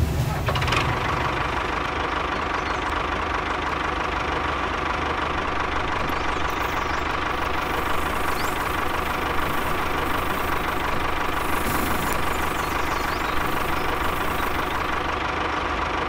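Tractor engine running steadily at an even pitch while the model tractor pulls a cultivator through sand.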